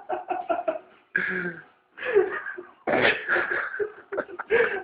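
A person's voice laughing and coughing breathlessly: a quick run of short choppy pulses, then longer gasping bursts.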